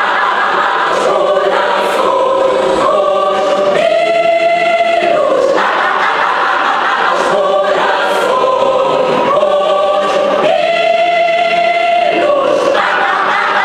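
Mixed choir of men's and women's voices singing a hymn in harmony, twice holding a long chord between moving phrases.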